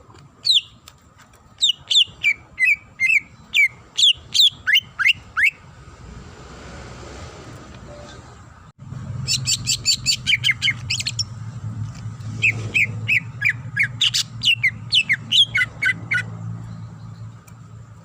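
Cucak ijo (green leafbird) singing a varied song of short, sharp whistled notes that sweep downward, delivered in quick series. After a hissy pause, the recording cuts about nine seconds in to a faster run of notes over a low hum.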